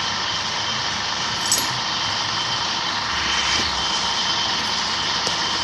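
Electric-motor-driven concrete block press machine running steadily, with a short click about one and a half seconds in.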